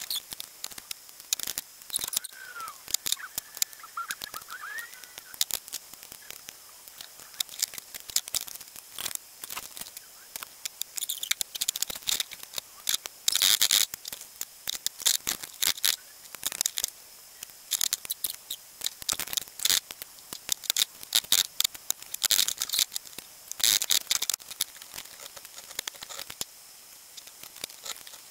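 Hand tools working electrical wire on a wooden workbench: pliers and cutters snipping and stripping the insulated wiring of a dismantled fan heater, in a busy run of sharp clicks, snips and small clatters. There are a few faint squeaks about three seconds in.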